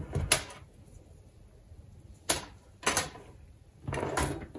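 Straightened coat-hanger wire rods and plastic strip connectors being handled and set down on a wooden worktop: a few separate light knocks and clicks, with a small cluster near the end.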